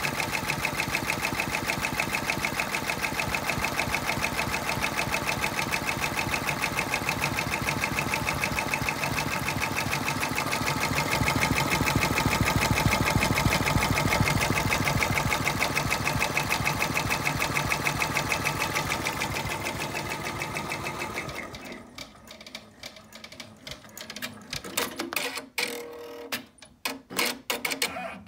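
Brother 10-needle embroidery machine stitching out a patch, a rapid steady chatter of the needle. About three-quarters of the way through it stops, leaving scattered clicks and knocks.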